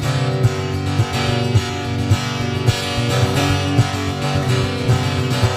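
Acoustic guitar strummed in a steady rhythm, about two strokes a second, in an instrumental passage of a folk-country song.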